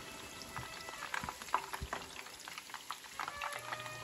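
Ground beef tacos in folded tortillas frying in hot oil in a skillet: a steady sizzle full of quick crackles and pops. A low steady hum comes in near the end.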